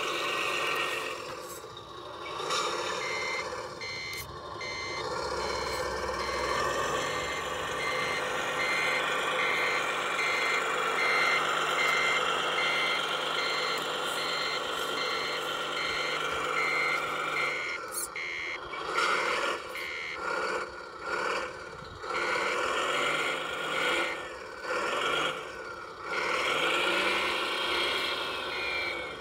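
Model truck's electronic sound module playing a diesel-like engine running, with a reversing beeper beeping steadily and evenly. The engine sound turns choppy, cutting in and out, in the last third.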